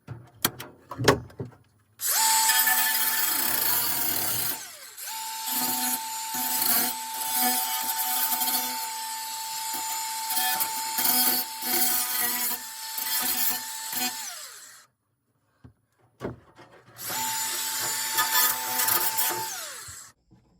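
Power drill running under load in two runs, one of about twelve seconds and a shorter one of about three seconds, each winding down as the trigger is released. A few sharp knocks come first.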